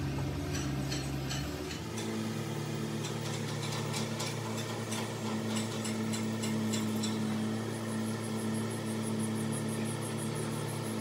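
Engine idling steadily, with a constant low hum whose pitch shifts slightly about two seconds in.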